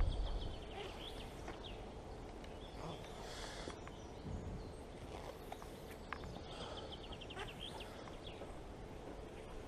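Quiet outdoor ambience with small birds singing short high trills, over a low steady rumble. There is a brief low thump at the very start.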